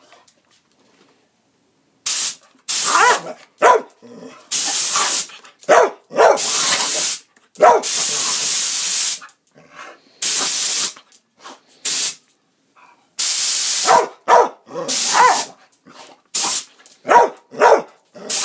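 Compressed-air blow gun hissing in repeated blasts of about half a second to a second and a half, with a pit bull barking at the air stream between and over the blasts. The barks come quicker and shorter near the end.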